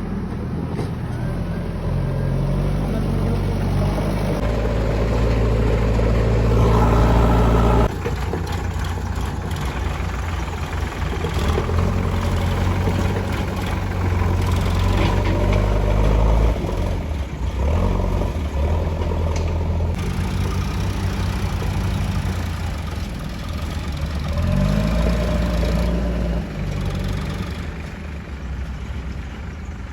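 Heavy diesel engines of a backhoe loader and farm tractors running under load and revving up and down. The sound changes abruptly several times.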